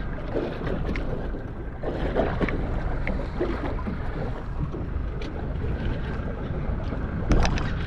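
Wind buffeting the microphone over water slapping against a small boat's hull while a fish is reeled in on a baitcasting reel, with a short louder sound near the end.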